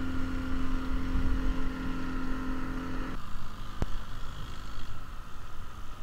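Motorboat engine running under way, a steady hum over low water and wind rumble. About three seconds in the sound changes suddenly, the hum dropping away to a rumbling run, and a single sharp click follows.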